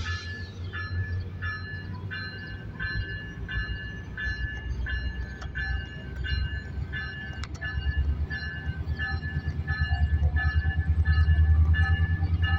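MP36 diesel locomotive running and growing louder about two-thirds of the way in as the train pulls away. A bell rings steadily about twice a second over it.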